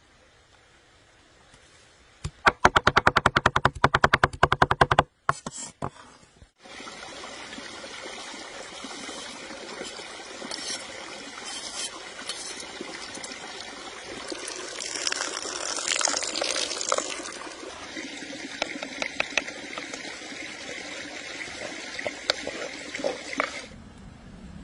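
Two knives chopping parsley and tomatoes on a wooden board in a fast, loud run of strokes for a few seconds. This gives way to the steady rush of a stream, with scattered clicks and scrapes of a knife blade in a wooden bowl of chopped herbs.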